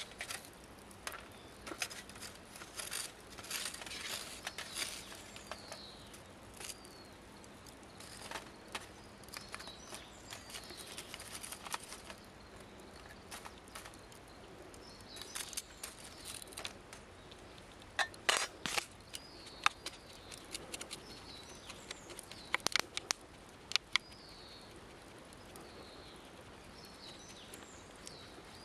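Scattered sharp clicks and knocks from working a small wood-burning camp stove, loudest in a cluster a little past halfway. Short, high bird chirps repeat faintly throughout.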